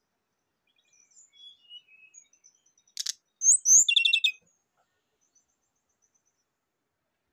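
Brown-chested jungle flycatcher singing: a few soft scattered high notes, then a sharp click about three seconds in, two quick high slurred whistles, and a fast rattling run of notes around four seconds.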